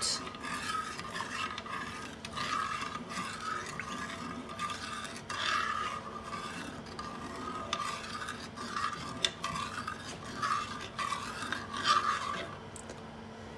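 Metal spoon stirring milk and brown sugar in a small stainless steel saucepan, scraping and rubbing against the pan bottom in repeated, irregular strokes while the sugar dissolves into the warming milk. The strokes fall quieter near the end.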